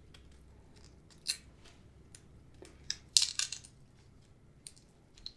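Shellfish shell being cracked and broken apart by hand: a few short sharp cracks and snaps, with a small cluster about three seconds in.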